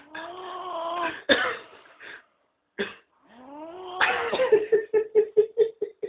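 An elderly man's weird, voiced snoring: drawn-out whining tones that bend in pitch, then a rising tone that breaks into a quick stuttering run of short pulses, about six a second, near the end.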